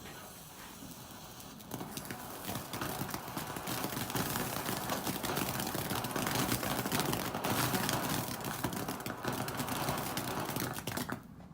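A firework burning, giving a steady noisy rush dotted with rapid crackles. It starts about two seconds in, builds, and cuts off suddenly near the end.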